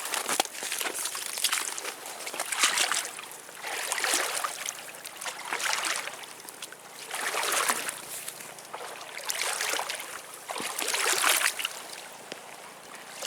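Water sloshing and splashing in repeated surges, about one every one and a half to two seconds.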